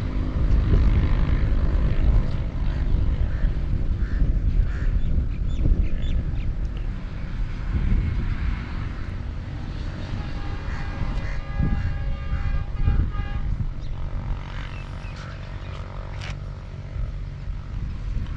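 Wind buffeting the camera microphone, a steady low rumble, with a few short high-pitched tones about two-thirds of the way through.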